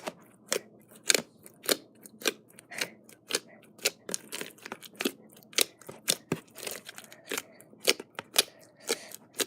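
Slime being squished and kneaded by hand, making a run of sharp, sticky clicks and pops about two a second.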